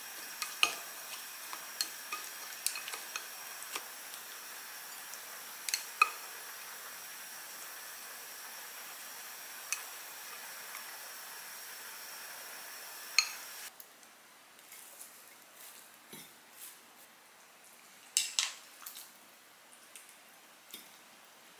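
Food sizzling in a frying pan, with sharp clinks and scrapes of a utensil against the pan and dishes. About two-thirds of the way through, the sizzle cuts off suddenly, and only scattered light taps and clinks follow.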